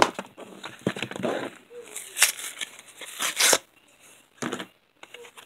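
Cardboard and plastic blister packaging being torn open by hand, in a series of irregular rips and crinkles. The loudest rips come a little past the middle, and the sound is quieter near the end.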